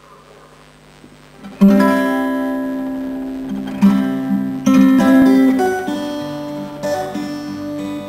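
Acoustic guitar strummed in loose, doodling chords: after a quiet start the first chord comes about a second and a half in and rings out, with new strums every second or two.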